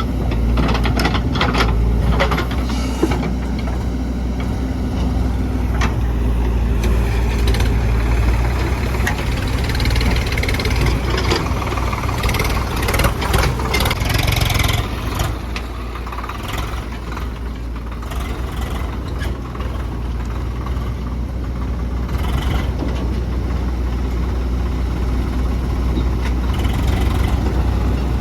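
Diesel engine of a JCB 3DX backhoe loader running steadily while it digs and loads mud. Metal knocks and clanks from the bucket and arm come in the first few seconds, and more activity follows around the middle.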